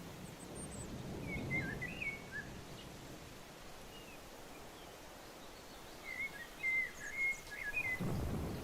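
A bird singing two short warbled phrases, one about a second in and a second phrase from about six seconds, over a low rumbling background.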